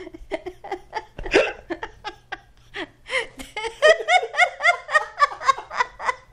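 A man and a woman laughing hard together in quick repeated bursts, breathy at first and then louder and fuller about two thirds of the way in.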